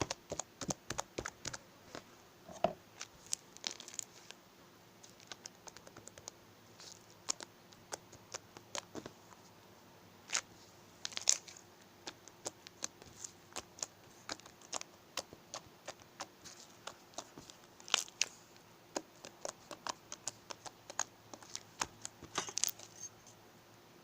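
Slime being squeezed and pressed by hand, giving irregular sharp clicks and pops, several of them louder snaps.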